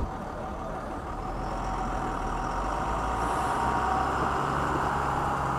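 Motor vehicle engine running steadily under a haze of road and wind noise, growing slightly louder after about a second.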